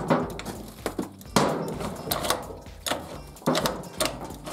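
Kick-start lever on a 50 cc four-stroke scooter worked by hand, clunking as it is pushed through and springs back, a few strokes a second or two apart. The kick-start mechanism has just been cleaned and greased, and the lever is returning to its rest position again.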